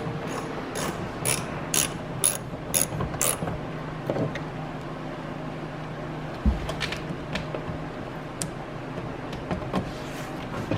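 Ratchet wrench with a 10 mm socket on a wobble extension clicking as it backs out the dash bolts, about two clicks a second for the first three seconds, then scattered clicks and knocks.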